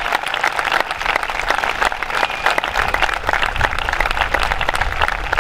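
Audience applauding, with many hands clapping steadily throughout.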